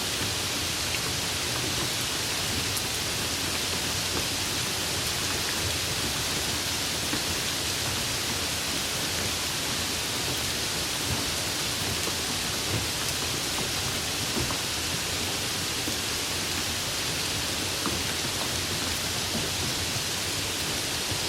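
Light rain falling steadily: an even hiss with a few faint scattered drop ticks.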